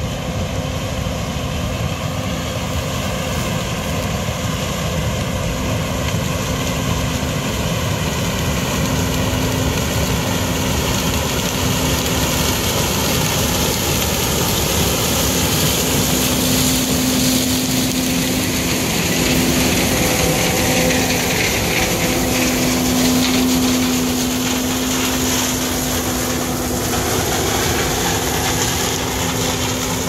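John Deere 9500 combine harvester running as it harvests standing corn, a steady machine drone with a constant hum. It grows louder as the combine comes close and eases slightly near the end as it moves off.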